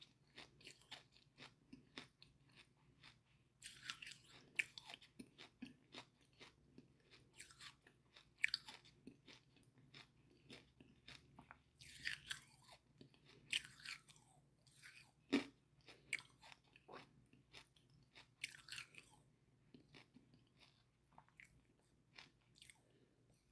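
A person chewing charcoal, crunching it between the teeth, with wet mouth clicks. The crunches come at irregular intervals, a few at a time with short pauses.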